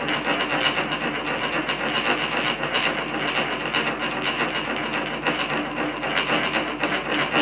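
Pestle rotated around inside a mortar (khal-musal), a steady grinding, rubbing scrape with quick small clicks and a faint high ringing tone under it.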